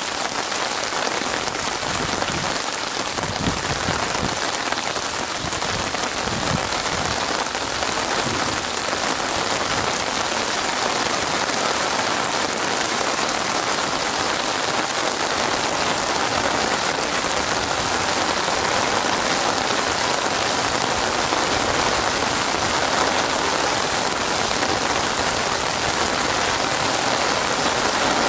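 Heavy rain falling steadily, a dense, even hiss of drops spattering on a wet surface, with a few soft low rumbles a few seconds in and the downpour growing slightly louder toward the end.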